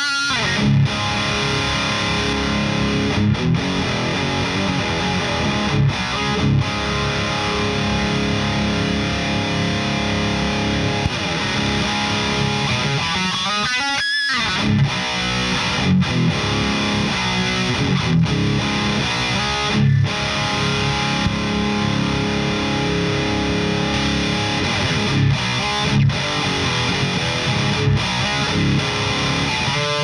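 Heavily distorted electric guitar through a high-gain Victory Super Kraken amp, playing metal riffs with short stops between phrases. The riff halts briefly about halfway through, then starts again.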